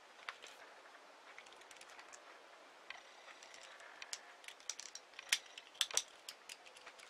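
Small 4 mm beads clicking against each other as a beadwork piece is handled and stitched, in scattered light clicks that come thicker and louder from about four seconds in.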